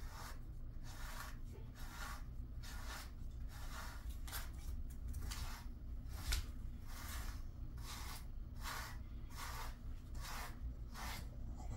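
A brush raking through a Jindo dog's fur in repeated scratchy strokes, about two a second, one sharper stroke about six seconds in.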